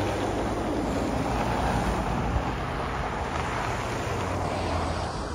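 Cars driving past on a snow-covered road, a steady hiss of tyres and engines mixed with wind on the microphone.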